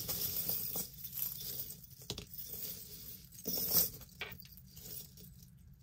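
Metal chain links clinking and jingling as a necklace of interlocking metal rings is handled and spread out on a cloth, with a few sharper clicks, the loudest about three and a half seconds in.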